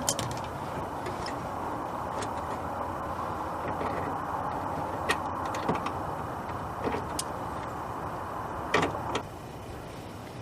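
Scattered light clicks and knocks of hands handling tools and parts, over a steady rushing background noise that drops off near the end.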